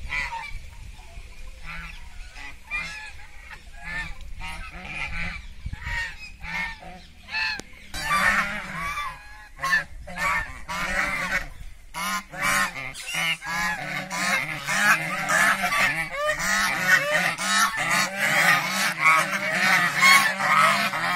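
A flock of white domestic geese honking. Scattered single calls at first, then from about eight seconds in many geese honk at once in a continuous overlapping chorus.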